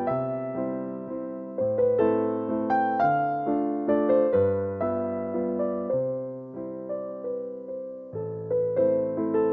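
Background music: a piano playing a slow, gentle melody over held bass notes, each note struck and then fading.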